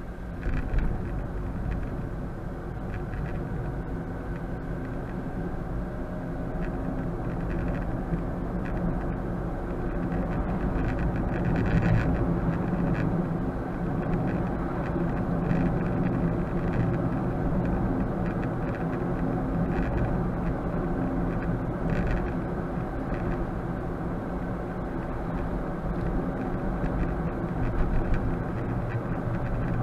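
Steady road and engine noise inside a moving car, picked up by a dash cam's microphone: a low rumble with a constant hum and a few faint clicks.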